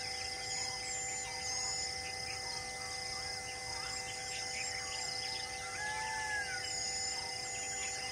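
Forest ambience: birds chirping and calling over and over, with a steady high drone of insects.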